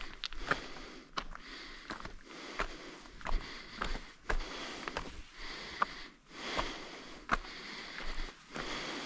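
A hiker's footsteps on a trail at a steady walking pace, about one step every three-quarters of a second, with breathing.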